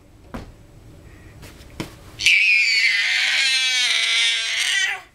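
Baby's long, high-pitched excited squeal, starting about two seconds in and lasting nearly three seconds. A couple of faint knocks come before it.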